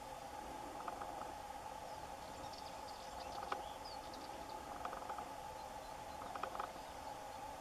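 Outdoor field ambience: a steady insect drone with scattered short chirps and clicks throughout.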